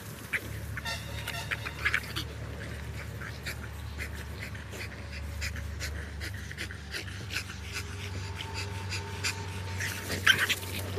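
French bulldogs panting as they play, over frequent short crackles of dry leaves and sand.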